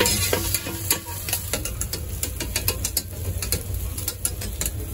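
Metal spatula and tongs clicking and scraping on a hot griddle while sliced sausage sizzles, with irregular sharp clicks several times a second.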